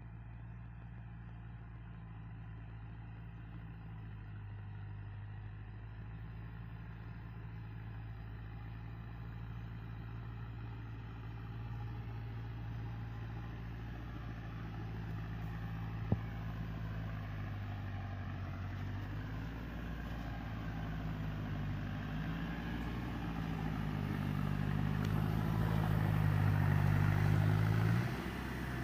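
Deutz-Fahr tractor's diesel engine running steadily under load while working tilled soil, growing louder as it comes close. Its pitch shifts a few times near the end, and there is one sharp click about sixteen seconds in.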